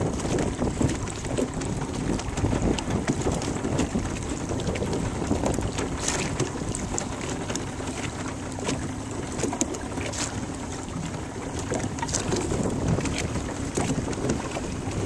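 Wind buffeting the microphone over choppy river water lapping against a small boat, a steady rushing noise with a few brief sharper splashes.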